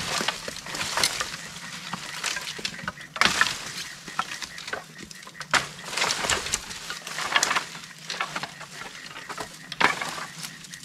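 Sticks and brush being pulled down onto a brush pile: irregular rustling and scraping with many sharp snaps and cracks, in several louder clusters.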